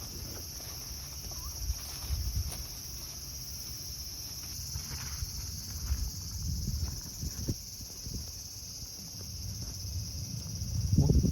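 A steady, high-pitched chorus of summer insects, with low rustling and thumps underneath that are loudest near the end.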